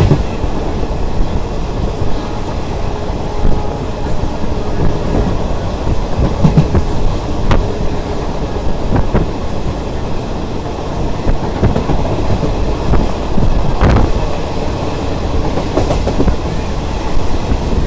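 Indian express passenger train running at speed, heard close from a coach door: a steady rumble of wheels on the rails with scattered sharp clacks over rail joints, the loudest about three quarters of the way through.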